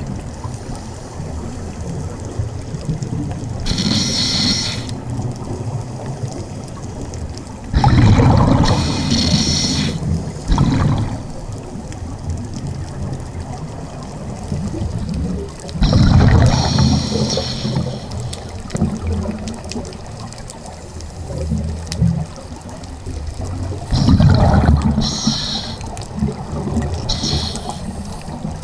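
Scuba regulator breathing heard underwater: a constant low water rumble broken every few seconds by louder bursts of hissing breath and gurgling exhaust bubbles.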